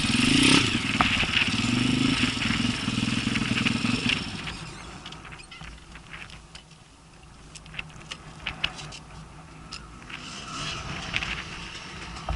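Enduro dirt bike engine revving loudly for about four seconds, its pitch wavering with the throttle, then dying away; a few sharp clicks in the quieter middle, and engine noise building again near the end.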